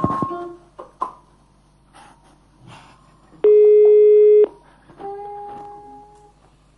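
Italian telephone ringback tone on a call waiting to be answered: one steady tone lasting about a second, about three and a half seconds in, part of a ring that repeats every five seconds or so.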